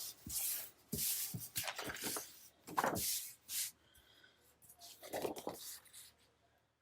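Sheets of scrapbook paper rustling and sliding as they are handled, in a run of short bursts over the first few seconds, then a few fainter rustles with one more burst just after five seconds.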